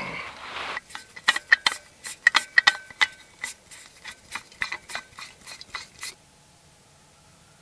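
Quick metallic clicks and clinks of a small backpacking gas stove being handled and screwed onto its fuel canister, stopping about six seconds in.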